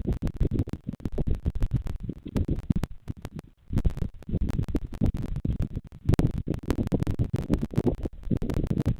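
Wind buffeting the nest camera's microphone: an uneven low rumble with dense crackling clicks and a brief lull partway through.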